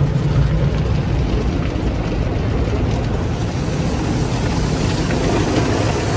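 Automatic car wash heard from inside the vehicle's cabin: a steady rumble and wash as cloth strips and foam work over the car, with a brighter hiss of water spray on the glass building from about three seconds in.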